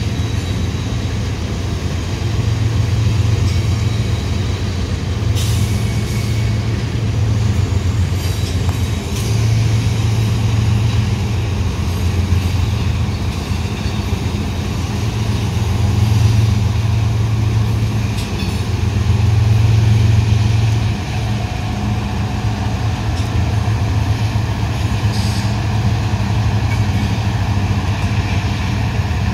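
Diesel locomotive engines running with a deep, steady rumble that swells and eases several times. A few brief hisses come through, at about five seconds in, around nine seconds, and again near the end.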